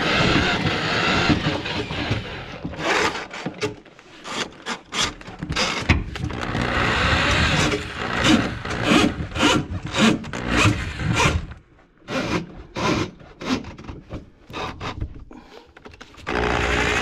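Hand-cranked drum drain auger feeding its steel cable into a grease-plugged kitchen sink drain line: a run of irregular rasping, scraping strokes from about two seconds in until near the end, as the cable struggles to get through. Steady background music plays at the start and comes back near the end.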